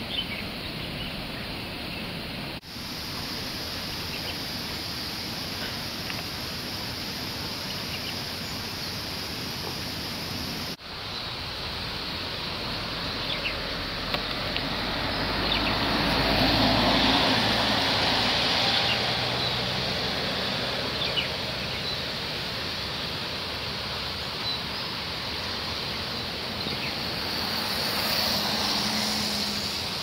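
Steady outdoor background hiss that swells louder with a low rumble for several seconds in the middle, with a few faint short ticks scattered through it.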